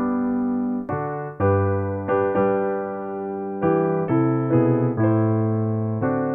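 Solo keyboard music: slow, sustained piano-like chords, a new chord struck about once or twice a second and fading between strikes.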